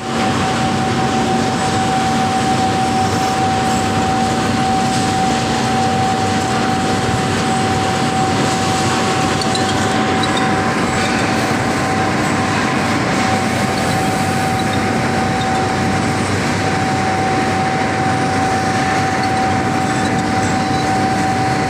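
Industrial machinery running steadily: a loud, even noise with a constant high whine and a fainter low hum underneath.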